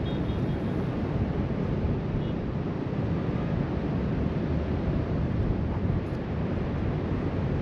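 Wind buffeting the action camera's microphone, a steady low rumbling wash mixed with the sound of waves breaking along the shore below.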